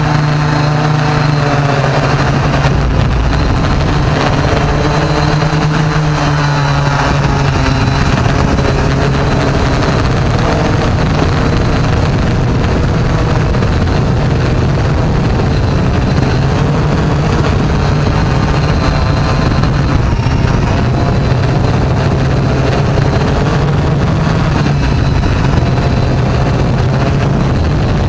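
A drone's motors and propellers buzzing steadily in flight, heard close up from its onboard camera, with the pitch wavering slightly as it manoeuvres.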